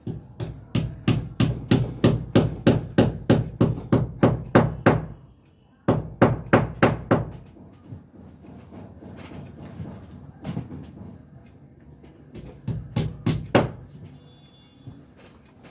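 Hammer blows struck in quick succession, about four a second, in a long run and then a shorter one, followed by a few scattered strikes.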